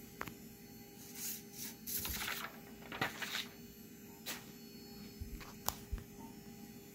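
A steady electrical hum with a few short scuffing noises and scattered sharp clicks, the loudest about three seconds in.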